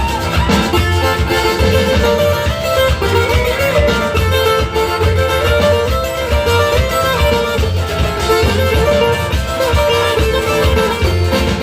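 Carranga band playing an instrumental passage: a lead melody line over strummed string instruments and a steady bass beat.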